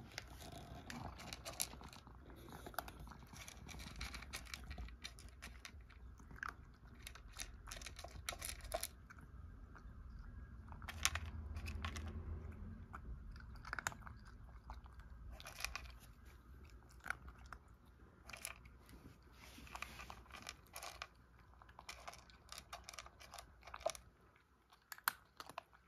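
A cat eating dry kibble: irregular crunching and chewing, many short crisp crunches in quick succession.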